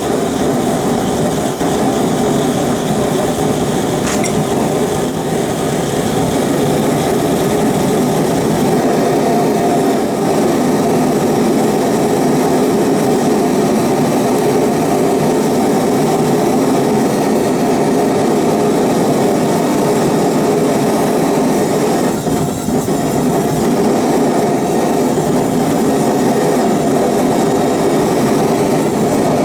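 Single-burner gas forge burner running with a steady, unbroken rush of flame and air during the first curing firing of its freshly Satanite-lined chamber. It dips briefly about 22 seconds in.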